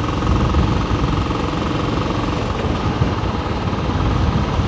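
Royal Enfield Classic 350's single-cylinder engine running steadily as the motorcycle cruises, mixed with wind noise on the microphone.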